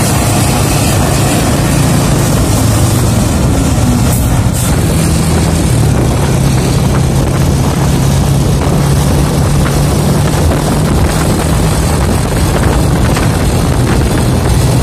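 Steady engine and road noise of vehicles on the move behind a Mercedes-Benz intercity bus, with a low engine hum that steps slightly higher about five seconds in.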